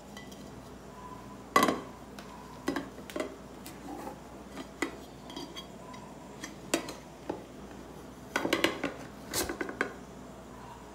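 Aluminium tube cake pan and a china plate knocking and clinking against each other and the counter as the plate is laid over the pan, the two are flipped together and set down to unmould the custard. A string of separate sharp knocks: the loudest comes about a second and a half in, and a quick cluster comes near the end.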